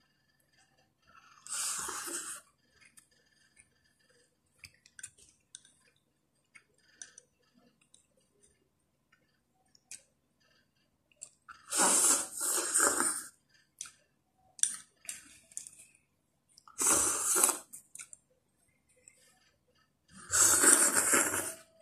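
A person eating egg noodles with chopsticks: four loud slurps of about a second each, with faint chewing and small clicks in between.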